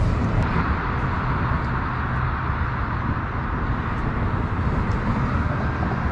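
Steady rush of highway traffic: a mix of tyre noise and low rumble, with no single vehicle standing out.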